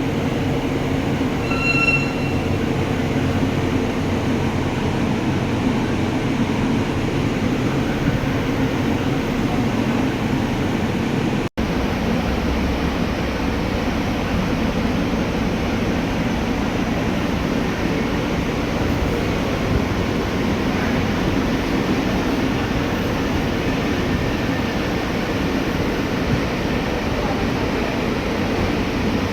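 Ford Ranger engine running steadily, a continuous mechanical rumble. A short high beep sounds about two seconds in.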